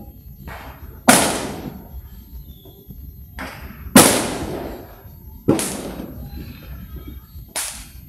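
Fireworks exploding: four loud bangs spaced irregularly a second and a half to three seconds apart, each dying away over about a second. Two fainter bursts come just before the first two bangs.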